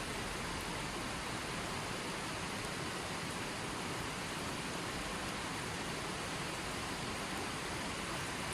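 Running water flowing steadily: an even, unbroken rush with no distinct drips or splashes.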